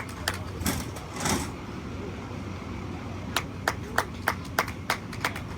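Scattered hand clapping. Several claps early on, a break of about two seconds, then an even run of claps about three a second near the end.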